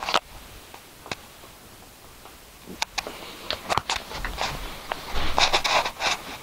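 Handling noise from a phone being moved and gripped: scattered clicks and knocks, and a stretch of rustling about five seconds in.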